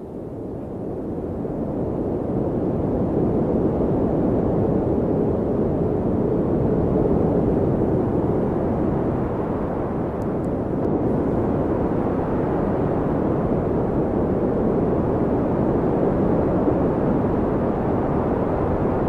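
A steady, low rumbling rush of noise with no distinct tones, swelling in over the first couple of seconds and then holding level.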